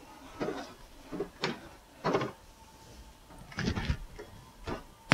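Dishwasher being slid into its cabinet opening on its plastic feet: a series of short scrapes and knocks, about five or six of them spaced through a few seconds.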